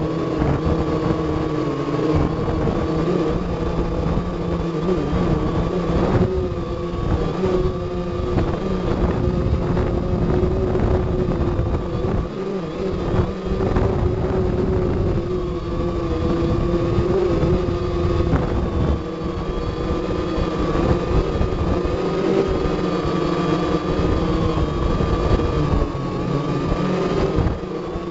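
Quadcopter drone's motors and propellers whining steadily in flight, heard up close, the pitch wavering slightly as the motors adjust. A rough low rumble runs underneath.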